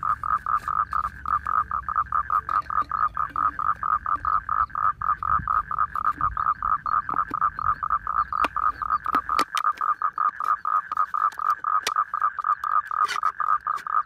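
A frog calling without pause, an even, rapid pulsing of about four to five calls a second. From about halfway through, a few sharp snips of scissors cutting a plastic bottle.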